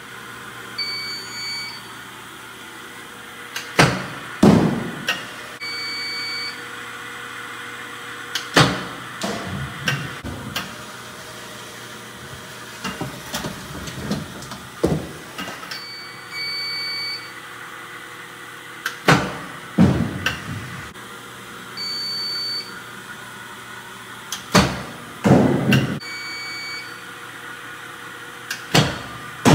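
Sports Tutor Home Plate triple-wheel pitching machine running with a steady hum from its spinning wheels, firing a baseball with a sharp smack about every five seconds, each followed by a short rattle. A short, high two-tone beep sounds a few seconds before most pitches.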